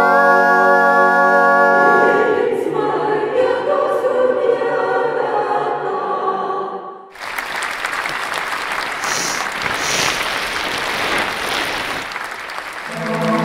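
Several voices singing a held chord in harmony, which moves to a fuller, busier passage about two seconds in. About seven seconds in the singing stops and applause takes over, dying down near the end as a new held chord begins.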